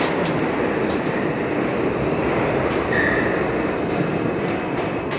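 New York City (6) R62A subway train running on the track, its rumble easing off gradually, with a brief high wheel squeal about three seconds in.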